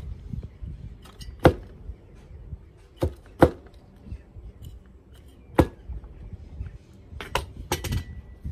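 About six sharp knocks and clacks at irregular intervals, two of them close together about three seconds in, from potting work at a planter box: a small hand tool and plant pots striking the planter and each other. Soft rustling of soil and leaves runs between the knocks.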